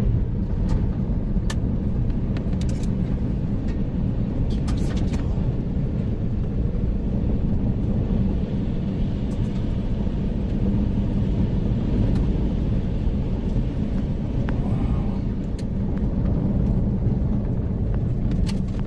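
A vehicle driving on a dirt road, heard from inside: a steady low rumble of engine and tyres, with a few brief sharp clicks.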